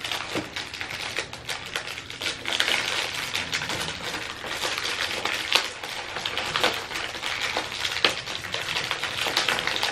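Crinkling and rustling of a clear plastic snack wrapper as hands pull and twist at it, trying to tear it open, with a few sharper crackles along the way.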